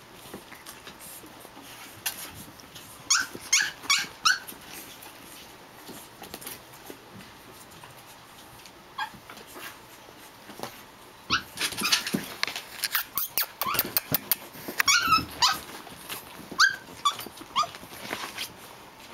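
Japanese Chin puppies yipping and squeaking as they play, short high-pitched calls in small clusters that come thick and fast in the second half.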